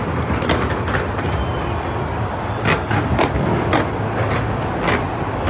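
Large fireworks display going off in rapid succession: a continuous low rumble of bursts and crackle, with several sharper bangs standing out from about halfway through.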